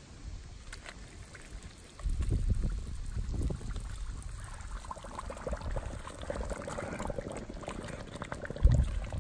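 Quicklime slaking in hot water, the lime wash bubbling and crackling around the sides of the container as it heats toward boiling. A low rumble comes in about two seconds in.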